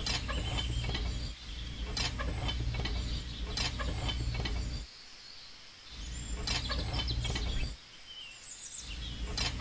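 Outdoor background noise: a steady low hum that cuts out abruptly twice, with scattered high bird chirps over it.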